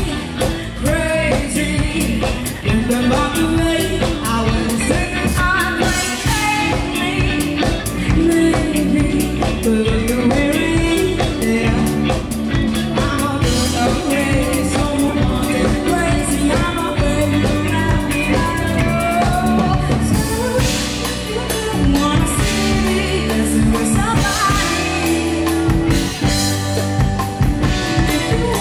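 Live rock band playing with a woman singing into a microphone over drum kit, electric guitars and keyboard, all amplified through PA speakers.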